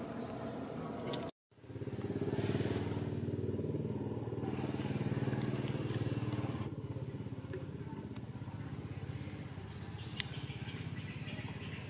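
An engine running steadily with a low, fast pulse, after the sound cuts out completely for a moment about a second and a half in. A single sharp click comes near the end.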